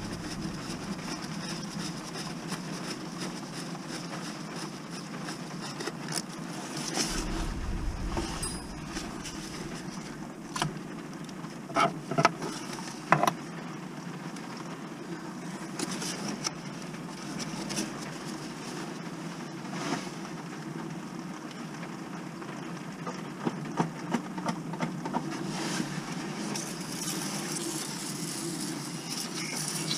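Small knocks and rubbing from hand work on a gearbox bellhousing, with a few sharper knocks around twelve to thirteen seconds in; near the end a spray cleaner hisses onto the casing.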